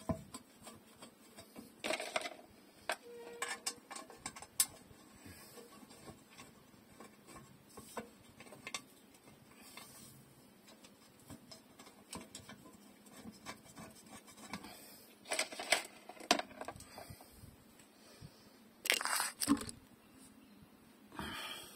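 Hands handling a pickup's steel rear differential cover against the axle housing: scattered light metal clicks and taps with rustling. There are a few louder scraping rustles, the last as the camera itself is moved and handled.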